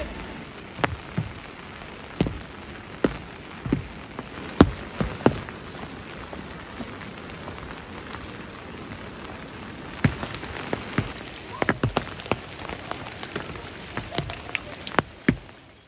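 Steady rain falling, with large drops striking a hard surface in sharp, irregular taps that come more thickly about two-thirds of the way through.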